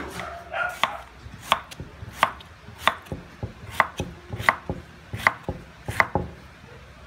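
Kitchen knife cutting banana blossom on a thick wooden chopping block, with a sharp knock of the blade on the wood at each stroke. There are about eight main knocks, roughly one every three-quarters of a second with lighter taps between, and they stop about six seconds in.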